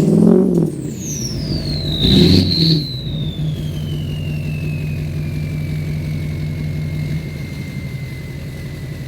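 LBZ Duramax 6.6-litre V8 turbodiesel revved twice in the first three seconds, then settling to idle. A loud turbo whistle sounds over it, falling slowly in pitch as the turbo spools down.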